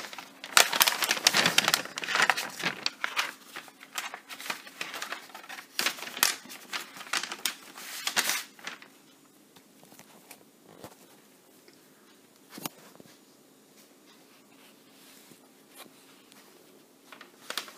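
Sheet of freezer paper rustling and crinkling as hands handle and fold it, busy for about the first eight seconds, then dropping to a few light taps.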